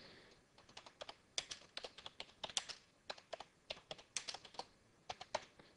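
Typing on a computer keyboard: a run of faint, uneven keystrokes starting about a second in.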